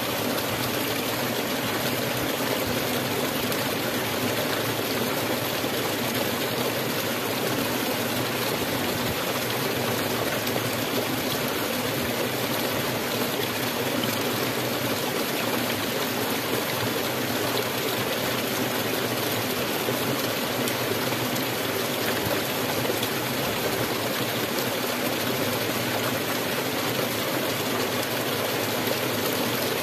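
A shallow stream running over rocks, a steady rush and babble of water that does not change.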